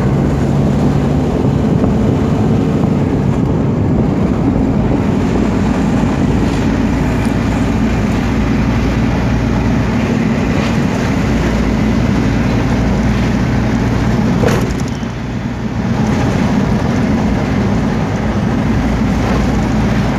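A car's engine and road noise heard from inside the cabin while driving, a steady low rumble. A single sharp click about two-thirds of the way through.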